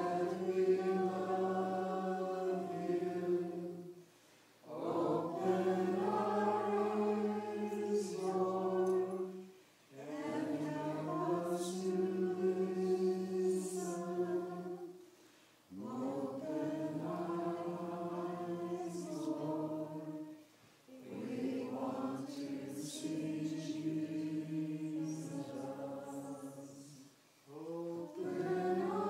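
Church choir singing unaccompanied in slow, held phrases of about five seconds each, with a short breath pause between phrases.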